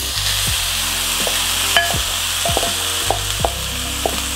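Shredded steamed shark tipped into a hot steel pan of fried onion and spices, sizzling steadily as it lands, over background music.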